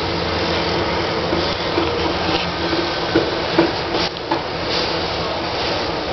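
Steady loud rumble of a train running, heard from inside the carriage, with a few sharp knocks and clicks a little past the middle.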